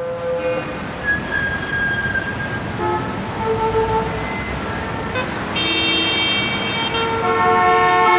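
New York City street traffic heard from high above: a steady hum of traffic with car horns honking several times, and several horns blaring together over the last few seconds.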